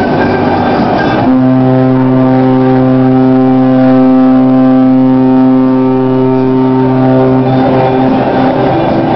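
Cruise ship horn sounding one long, deep, steady blast of about six seconds, with the tail of another ship's horn overlapping it at the start, in a horn exchange between two cruise ships.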